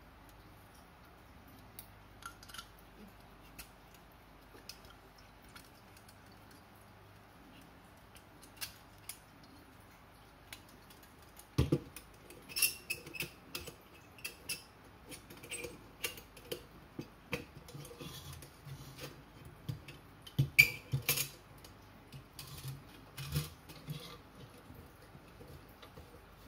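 Metal clicks, clinks and knocks as the steel parts of a vintage Coleman M1950 pocket stove are handled and its folding pot-support arms are swung into place. At first there are scattered light ticks, then from about halfway a busier run of clatter, with the sharpest knocks near the middle and about three-quarters of the way through.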